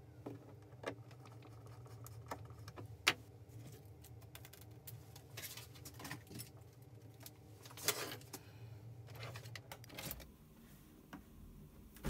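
Scattered clicks and clinks of small metal hand tools being picked up and set down on a wooden workbench, the sharpest about three seconds in, over a steady low hum.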